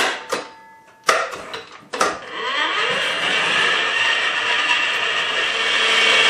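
Electric tilt-head stand mixer: a few clicks and knocks as the beater is fitted and the head lowered, then about two seconds in the motor starts, spins up and runs steadily, beating cream cheese and an egg in a stainless steel bowl.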